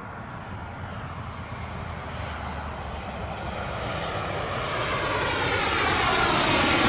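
Jet aircraft approaching, its engine noise swelling steadily louder, with a hissing sweep that falls in pitch as it nears.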